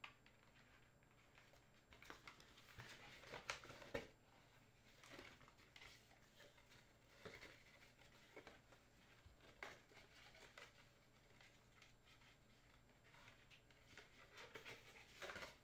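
Faint rustling and small clicks of a cardboard box and a leather camera strap being handled and unpacked, busiest about two to four seconds in and again near the end.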